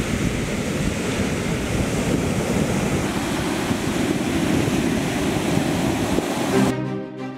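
Steady sea surf breaking on a beach, with wind buffeting the microphone. Near the end, music cuts in abruptly.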